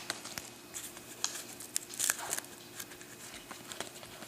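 Basketball trading cards being handled and flipped through: a scattered run of faint clicks and soft taps as cards slide against each other.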